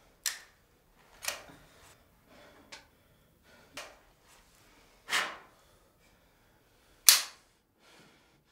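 About six sharp smacks at uneven intervals, the loudest about seven seconds in: blows struck on the captured, beaten prisoner.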